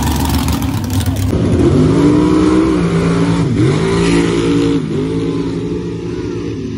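Stepside pickup truck's engine accelerating hard down a dirt drag strip. The revs climb, drop sharply at two gear changes about three and a half and five seconds in, climb again after each, and the sound fades as the truck pulls away.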